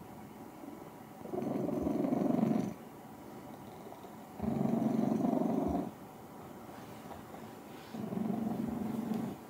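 Domestic cat purring very loudly in waves: three loud stretches of about a second and a half each, with much quieter stretches between them.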